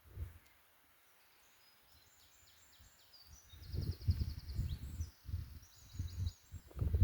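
Low, gusty rumble on the microphone starting about three and a half seconds in, with small birds chirping high and faint and one quick trill in the background.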